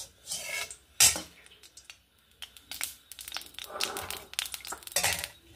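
Steel utensils knocking on an iron kadai: one sharp clank about a second in, then scattered light clicks and scrapes as a flat steel ladle spreads coconut oil around the pan.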